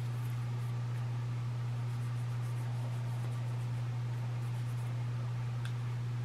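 A steady low hum, with faint light rustling from an oily cleaning patch being wiped along a muzzleloader's metal barrel and action.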